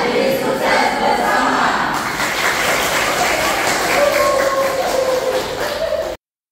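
A group of young people chanting together, then clapping and cheering; the sound cuts off abruptly near the end.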